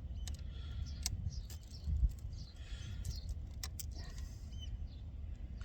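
Small clicks and light jangling of fishing tackle being handled as crab bait is bound onto the hook with bait elastic, over a steady low rumble. A few faint short bird chirps.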